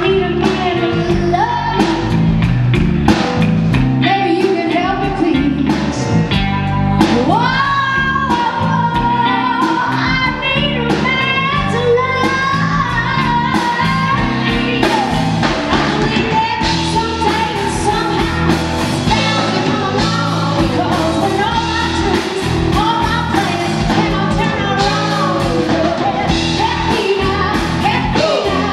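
A live blues band: a woman sings over electric guitar, keyboard, bass and drums.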